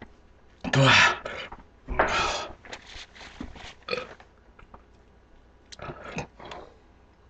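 A man belching loudly after gulping carbonated Sprite. Two long, loud burps come about one and two seconds in, followed by a few shorter ones, and another pair comes near the end.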